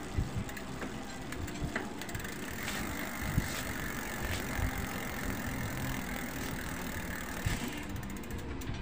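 8-speed bicycle chain running over the sprockets and chainring as the drivetrain is turned, a steady whir with light regular clicks. This is a test run of a freshly fitted missing link. The whir settles in about three seconds in and stops shortly before the end.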